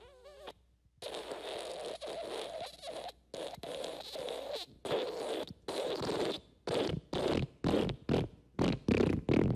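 Fart sound effects. A short wavering, pitched one ends about half a second in. Then comes a long raspy one, followed by a run of short sputtering bursts that come quicker and louder toward the end.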